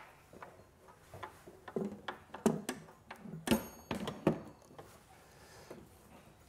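Wooden clock case being handled and turned around on a tabletop: a cluster of knocks, bumps and scrapes, with a brief metallic ring about halfway through.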